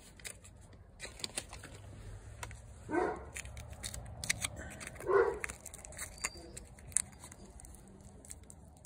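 Aluminium foil tape and plastic wrap crinkling and crackling as fingers press them around a plant graft, in many small irregular crackles. Two short barks stand out, about three and five seconds in.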